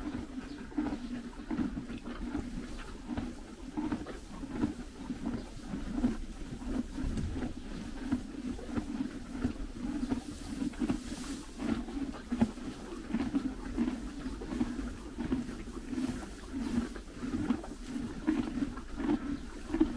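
Horse chewing hay close up: a steady run of crunching bites and grinding, with the dry rustle of hay being pulled from the feeder.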